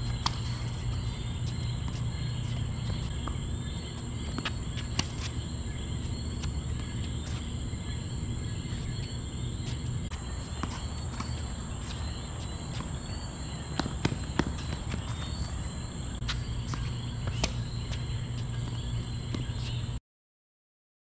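Tennis ball struck back and forth with racquets in a rally: sharp pops every second or two, over a steady high insect drone and a low hum. The sound cuts out to silence near the end.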